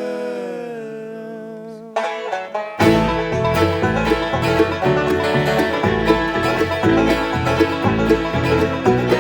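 A bluegrass band's a cappella vocal harmony holds the last chord and fades. A few plucked notes follow about two seconds in, and a little later the full band kicks in with a driving banjo and guitar over low bass notes.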